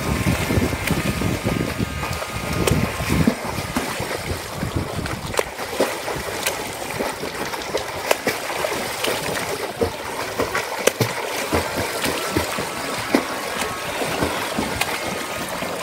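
Irregular splashing of water from a swimmer's flutter kick and arm strokes doing front crawl in a swimming pool: a continuous wash of small, sharp splashes.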